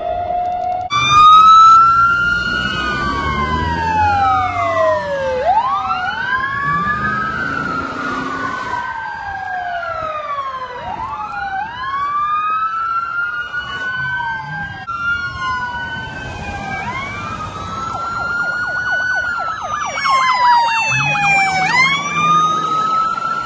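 Police car sirens from several pursuing patrol cars wailing at once, their rising and falling sweeps overlapping, with a fast warbling yelp in the last few seconds. Engine noise from vehicles going by swells with the loudest moment about a second in.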